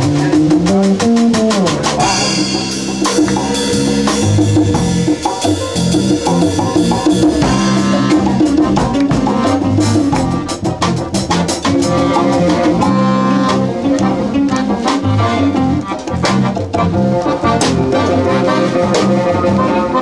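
Live band playing, with a drum kit and percussion keeping a steady beat under pitched instruments.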